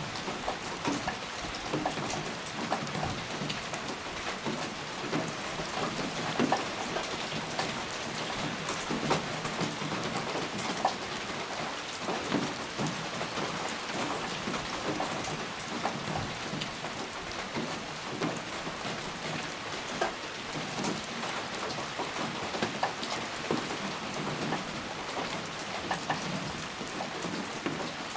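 Steady rain falling, with many distinct, irregular drops hitting close by over an even hiss.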